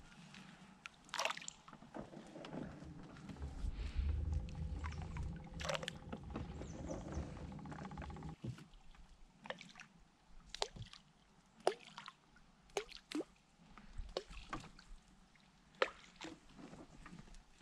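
Water sloshing and dripping around a small rowing boat on a lake. There is a low rumble in the first half, then a scattered run of short, sharp plops and knocks.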